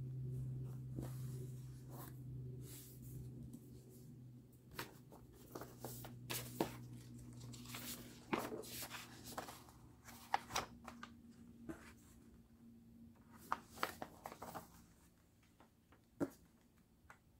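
Paper being handled: a glossy sticker sheet and photocards set down on a table and a folded paper poster opened out, giving scattered rustles, crinkles and light taps. A low steady hum underneath fades out about halfway through.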